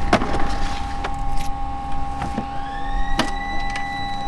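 Plastic fish crates knocking sharply several times as they are handled, over a steady mechanical hum. About two and a half seconds in, an electric whine rises in pitch and then holds steady.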